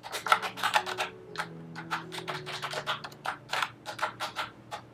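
Fingers typing on a TheCoopIdea wireless keyboard with round, typewriter-style plastic keycaps: a quick, uneven run of key clicks, several a second.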